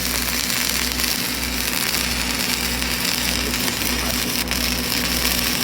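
A welding arc crackles and hisses steadily while a vertical-up root pass is run. Under it is a low hum from a running machine that pulses a little under twice a second.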